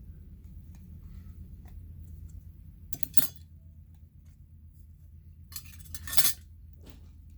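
Small metallic clinks and scrapes as a chromatic harmonica and its metal parts are handled for disassembly: a few light clicks about three seconds in and a louder cluster a little after five seconds, over a steady low hum.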